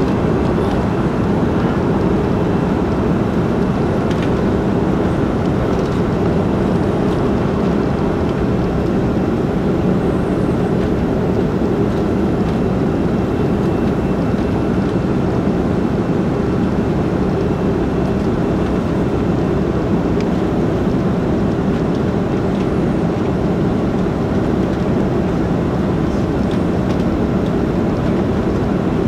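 Airbus A330-300 cabin noise during the climb after takeoff: a steady, unbroken engine drone and rushing air heard from inside the cabin over the wing, with a faint high whine above it.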